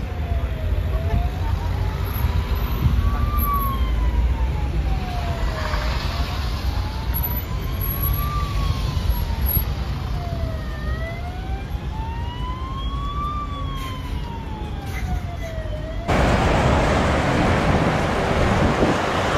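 Emergency vehicle siren wailing, rising and falling slowly about every five seconds, over the rumble of road traffic. Partway through, a second, higher siren sweeps along with it. About three-quarters of the way in, the sound cuts abruptly to a louder, steady noise.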